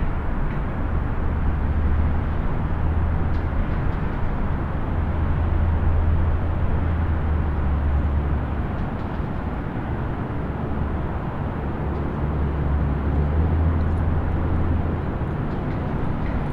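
Distant highway traffic: a steady wash of tyre and engine noise with a deep low rumble underneath. The rumble eases about ten seconds in, swells back, and eases again near the end.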